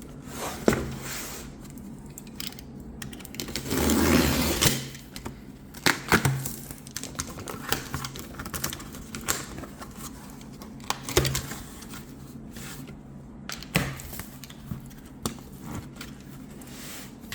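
Cardboard laptop box being opened by hand: scattered clicks, taps and rustles of packaging, with a louder scraping, tearing noise lasting about a second roughly four seconds in.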